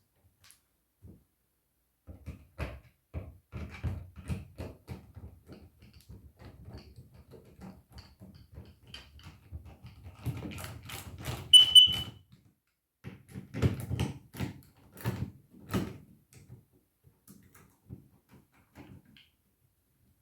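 Hands handling an alarm's wiring and plastic fittings: scattered clicks, knocks and rustling that grow busier after the first couple of seconds. A brief high-pitched tone sounds about halfway through.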